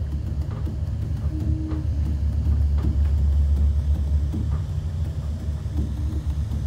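Low, steady rumble inside a moving cable car cabin as it descends, with small swells in level.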